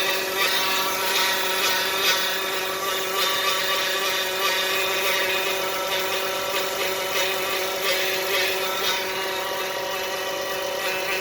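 2015 Dodge Caravan engine running with a steady whining noise, in a van that shows an engine light and will not drive forward. The whine holds one even pitch throughout.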